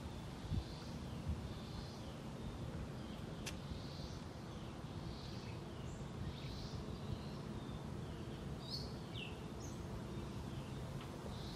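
Birds chirping in short, scattered calls over a steady low rumble, with one sharp click about three and a half seconds in.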